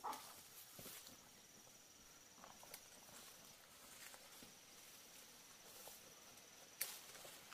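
Faint, high-pitched insect trilling in two long, even stretches, with a few soft clicks and rustles, one sharper click near the end.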